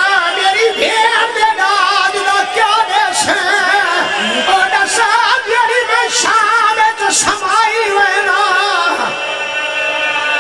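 A man's high voice singing a lament in long, wavering held notes with heavy vibrato, amplified through microphones and loudspeakers.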